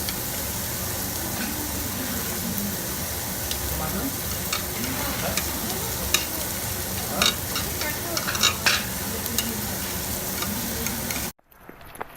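Meat sizzling on a Korean barbecue grill: a steady frying hiss with scattered sharp clicks and pops, cutting off abruptly near the end.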